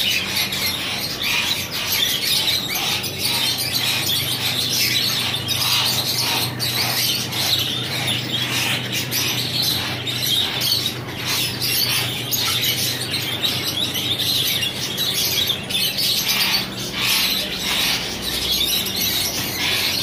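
A shop full of caged pet birds, mainly budgerigars with rose-ringed parakeets among them, chirping and chattering continuously in a dense, overlapping chorus. A steady low hum sits underneath.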